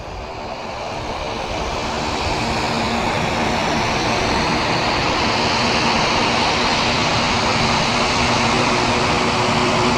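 De Havilland Canada DHC-6 Twin Otter's twin PT6A turboprop engines at takeoff power on the takeoff roll and lift-off. The sound is a broad rush of engine noise with a steady propeller hum beneath it, growing louder over the first few seconds as the plane closes in, then holding.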